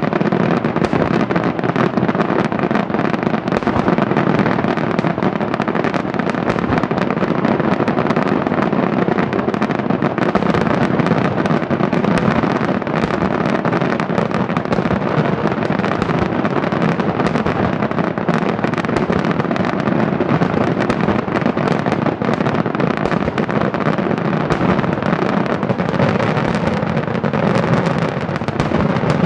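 Daytime fireworks going off in a dense, unbroken barrage: so many quick bangs and crackles that they run together without a pause.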